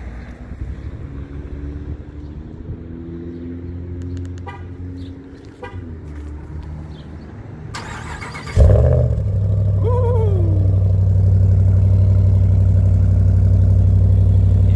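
2019 Ram 1500 Rebel pickup cold start heard at the exhaust: after a quieter stretch with a few faint clicks, the starter cranks briefly and the engine fires with a loud flare about eight and a half seconds in. A short falling whine follows as it catches, then it settles into a loud, steady cold idle.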